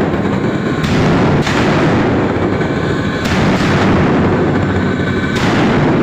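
TIG welding arc crackling and buzzing steadily and loudly, with abrupt shifts in its tone every second or two.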